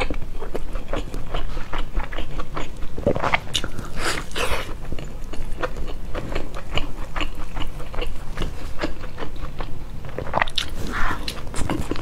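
A person chewing a mouthful of pan-fried flatbread stuffed with greens, heard as a steady run of small wet clicks. It grows louder for a moment about three to four seconds in and again near the end.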